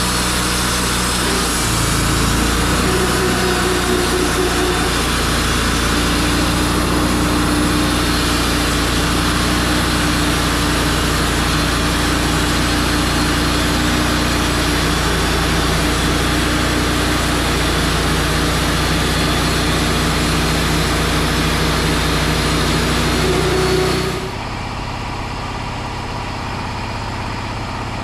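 Wood-Mizer LT35 band sawmill running steadily, its engine under load and the band blade sawing through a pine log with a loud, even hiss. About 24 seconds in the sawing hiss drops away abruptly, leaving a quieter engine sound.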